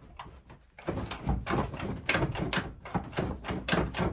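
Metal ash scoop scraping and clanking in a wood stove's firebox as ashes and live coals are shoveled out. Irregular knocks and scrapes start about a second in.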